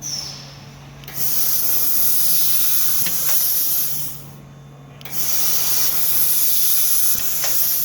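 Gas hissing from a 3 kW handheld laser welding and cleaning head as it fires: a brief puff at the start, then two long hisses of about three seconds each. A steady low machine hum runs underneath.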